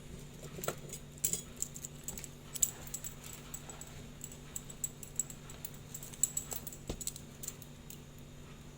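Small metal watchmaker's tools clicking and tapping irregularly against the parts of a Seiko Kinetic 5M43 watch being worked on at the bench, with a steady low hum underneath.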